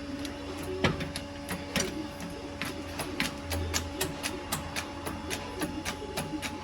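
A fast, uneven series of sharp clicks and light knocks, about three to four a second, over a steady hum.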